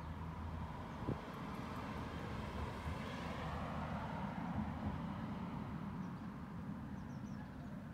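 Outdoor background noise: a steady low rumble with a broader rushing sound that swells to a peak about three seconds in and then fades, and a single sharp click about a second in.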